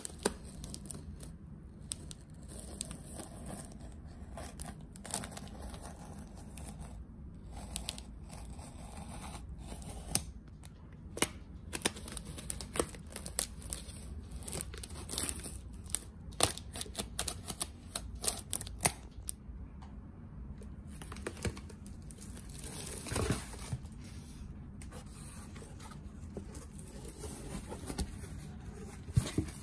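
A utility knife blade scratching and slicing through plastic packing tape along the seams of a cardboard box, in irregular short strokes, with tape and cardboard tearing and crinkling. A longer tearing sound comes about two-thirds of the way through.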